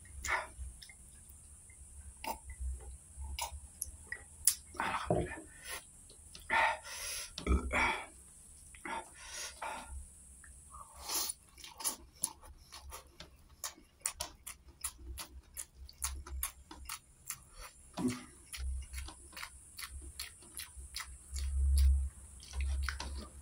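Close-miked chewing and mouth sounds of a person eating rice with canned sardines by hand: a long run of short wet clicks and smacks, with a few longer rustling bursts.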